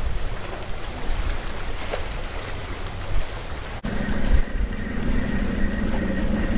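Wind buffeting the microphone over open water. After a short break about four seconds in, a steady engine hum joins in.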